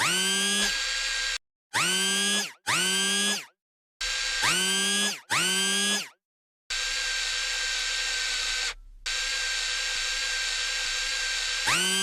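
A toy excavator's small electric motor whirs in about five short bursts. Each burst rises in pitch as the motor spins up and stops dead. The motor then runs steadily for about five seconds, with a brief drop near the middle.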